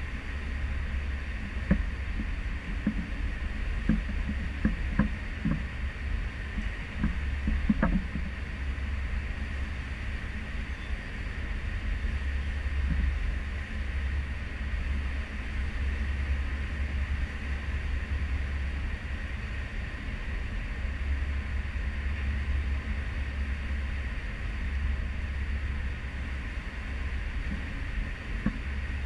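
Cruise ship Serenade of the Seas under way at sea: a steady low rumble and rushing noise, with wind on the microphone. Several short knocks come in the first eight seconds or so.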